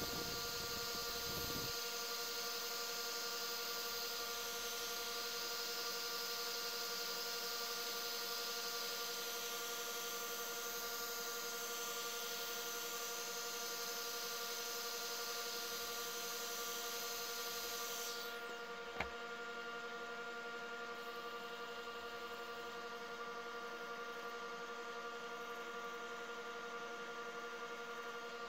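Wood lathe running with a steady whine while a rotary sanding disc on a handheld tool hisses against a spinning resin egg. About 18 seconds in, the sander spins down and stops, a single click follows, and the lathe's whine carries on.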